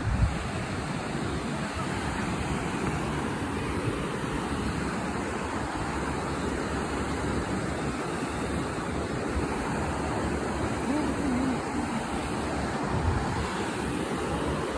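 Ocean surf breaking in a steady wash, with wind buffeting the phone's microphone. A brief thump at the very start.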